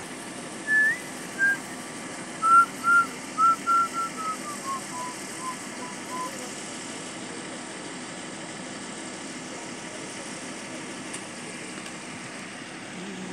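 A bird whistles a descending series of about a dozen clear notes over roughly five seconds, the notes coming closer together and fading as they drop, over a steady background rumble.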